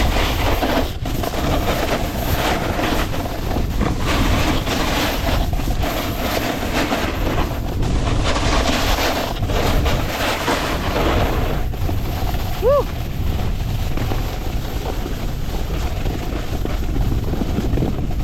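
Wind buffeting a body-mounted action camera's microphone during a snowboard run downhill, with the board sliding and scraping over the snow. A short rising-and-falling tone sounds once, about thirteen seconds in.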